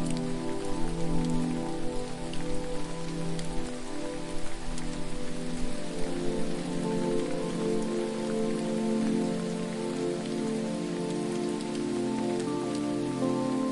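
Steady falling water, like rain, with scattered fine drop ticks, under soft music of slow held chords that change every second or two.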